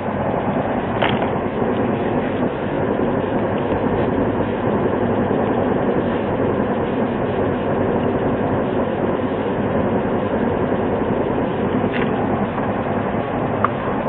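A steady rumbling noise with a few faint clicks, one about a second in and two near the end.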